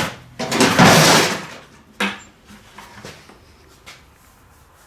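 Clatter of scrap laptop hard drives being handled and tipped out of a bucket, one loud jumbled rattle lasting about a second, followed by a single sharp knock and a few light clicks.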